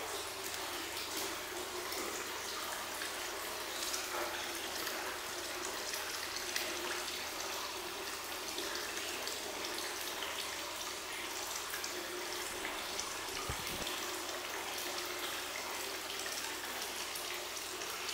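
Hot spring water running steadily into a wooden bathtub, an even splashing flow.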